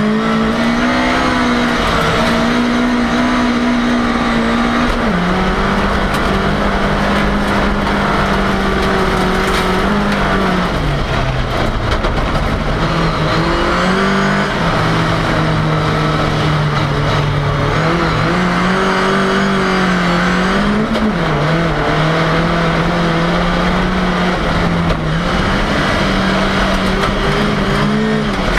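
Ford Cortina engine heard from inside the car under way, its revs climbing and falling continuously. The pitch drops sharply about five, eleven and eighteen seconds in, then climbs again.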